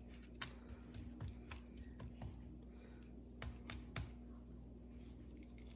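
Faint, irregular light clicks and taps from a plastic dry-rub shaker being shaken and handled over raw chicken thighs, with a steady low hum underneath.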